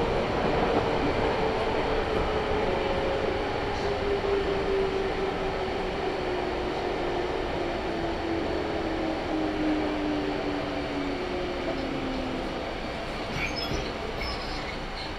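JR 211 series electric train running, with a single whine that falls slowly and steadily in pitch while the overall sound eases down as the train slows.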